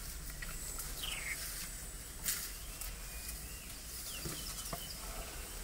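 Wild birds chirping in the bush, short scattered falling chirps, over a low steady hum. A single sharp snap about two seconds in.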